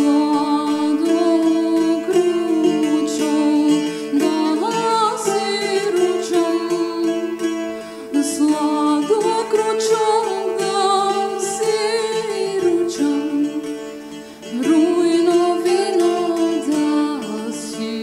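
A woman sings a slow, ornamented melody in the style of traditional Macedonian folk music, with wavering, bending notes, over a steady drone and plucked-string accompaniment. Her line pauses briefly twice between phrases.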